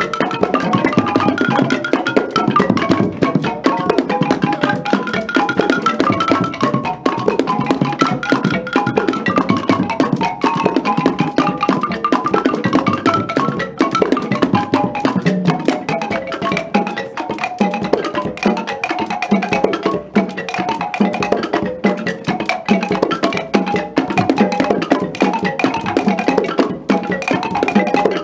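Wooden xylophones struck in fast, continuous melodic runs over hand drums: live traditional percussion music.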